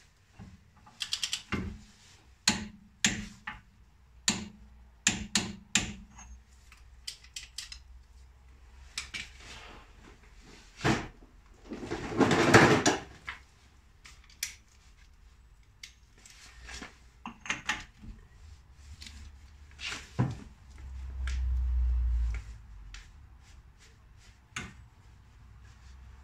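Hand tools clicking and knocking on a car's front hub nut as it is torqued up: a torque wrench and sockets being worked. There is a louder, longer clatter about twelve seconds in and a low rumble near the end.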